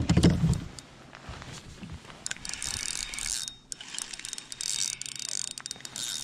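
Spinning reel being cranked, its gears whirring with a run of small clicks, after a low thump of handling right at the start.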